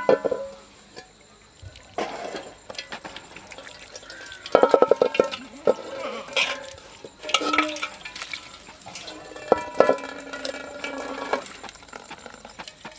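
Metal bowls and a pot clinking and knocking together as they are handled; several knocks leave a short metallic ring. Water splashes in the basin as chopped mushrooms are washed.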